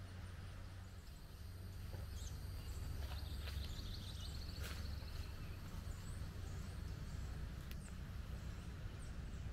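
Outdoor ambience of birds chirping now and then over a steady low rumble, with a rapid trill lasting about two seconds near the middle.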